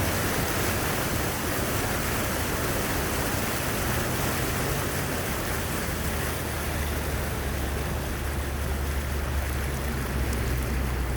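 Rainwater rushing steadily in a full stream after heavy rain. A low steady hum joins in about halfway.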